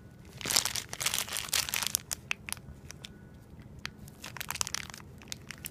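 Thin plastic bags crinkling as they are handled: a dense rustle in the first couple of seconds, then scattered light crackles.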